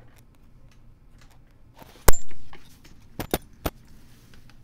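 Handling noise right at a clip-on lapel microphone as it is picked up and clipped back on: one sharp, loud knock about two seconds in, then three quick clicks.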